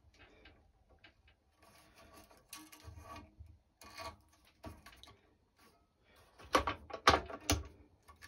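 Racket string and a string clamp being handled on a stringing machine: light rustling and small clicks, then a quick run of four or five sharp clicks near the end.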